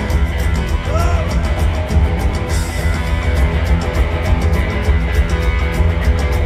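Live rock band playing loud through the PA: electric guitars over bass and a steady drum beat, recorded from within the crowd. A guitar note bends up and back down about a second in.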